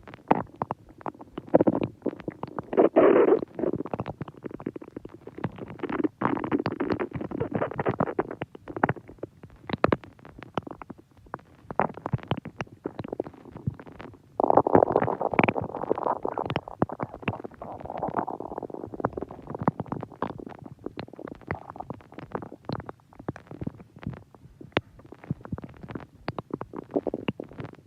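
Human stomach growling and gurgling: a continuous bubbling rumble full of small pops, with louder swells about three seconds in and again about halfway through.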